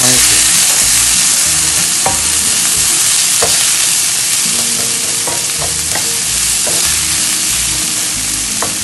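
Chopped red onion and green chillies sizzling steadily in hot oil in a nonstick frying pan as they are sautéed, stirred with a wooden spatula that now and then gives a short scrape or tap against the pan.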